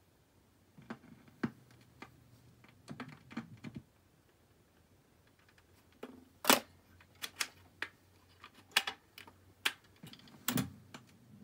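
BSR record changer in a Weltron 2007 going through its change cycle: a series of separate mechanical clicks and clunks as the tonearm lifts and swings clear, the next record drops from the multi-play spindle onto the platter, and the arm comes back over it. The loudest clunk comes about six and a half seconds in.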